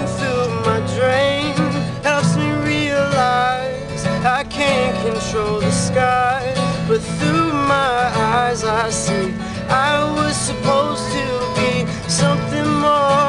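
Acoustic guitar played steadily, with a man's voice carrying a wordless sung melody over it.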